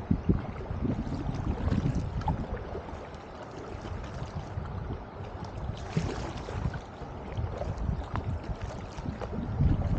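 Double-bladed kayak paddle dipping into and pulling through the water in alternating strokes beside an inflatable drop-stitch kayak, with splashing and water lapping along the hull.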